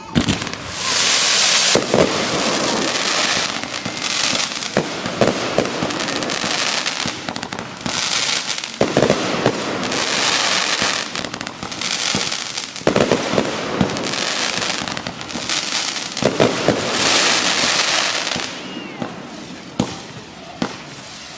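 Consumer fireworks going off in a dense barrage: many sharp bangs overlapping long stretches of crackling, thinning to a few separate bangs near the end.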